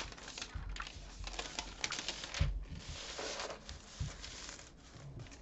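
Pages of a paperback colouring book handled and turned by hand: a thin translucent paper sheet rustles and crinkles as it is lifted and laid over, with a couple of soft knocks against the table.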